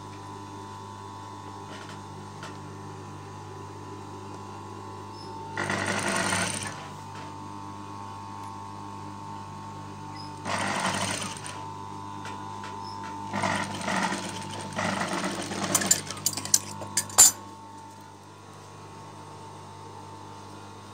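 Industrial sewing machine with its motor humming steadily, stitching knit fabric in three short runs of one to two seconds each. A quick series of sharp clicks and knocks follows about three-quarters of the way in, the loudest of them a single sharp crack.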